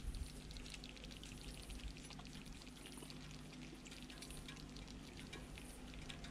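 Hot sauce sizzling and crackling faintly in a cooking tray around lamb shanks, as many tiny pops, over a low steady hum.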